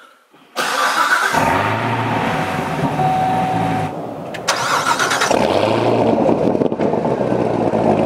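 2019 Corvette ZR1's 6.2-litre supercharged V8 being started: the starter cranks, the engine catches about a second in and flares up, then dips briefly and rises again before running steadily at a raised idle.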